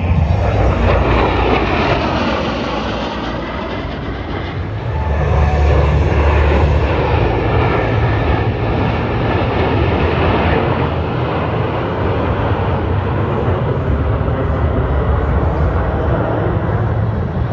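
Jet engine roar from a formation of military jet fighters making a low pass, loud and continuous. It eases a little about three seconds in and swells again about five seconds in, with a shifting, sweeping whoosh as the jets pass.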